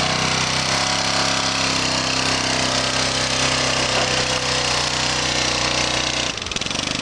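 Honda ATV engine running steadily under load while towing another ATV, with the transmission stuck in third gear. The engine sound drops off suddenly about six seconds in.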